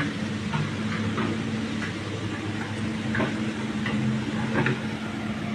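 Steady hiss of heavy rain and rushing floodwater, with a low steady motor hum underneath and scattered faint ticks.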